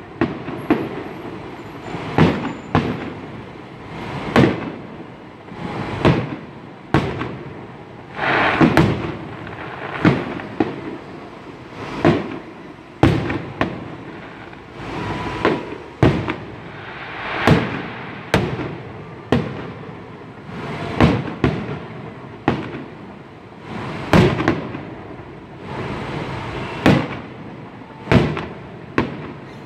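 Aerial firework shells bursting in a public display: a steady series of sharp bangs, about one every second or two, each trailing off in an echo.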